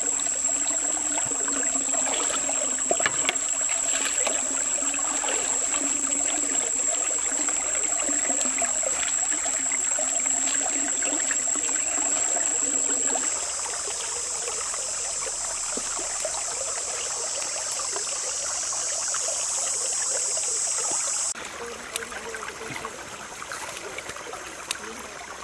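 Steady trickle of flowing water with small irregular ticks through it. A thin, steady high whine sits above it, widens into a louder high hiss about halfway through, and cuts off suddenly near the end, where the overall sound drops.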